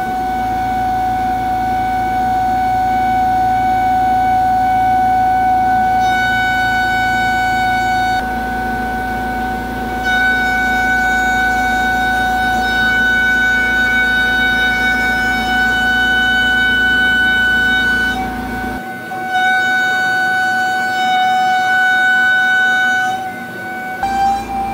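Pocket NC v2-50 desktop CNC mill's spindle and end mill rough-cutting 6061 aluminium: a steady high whine with overtones, which shifts in tone several times as the tool's path through the cut changes.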